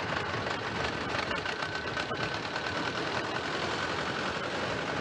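Small mini-tractor engines running as the tractors drive past, a fast, even clatter.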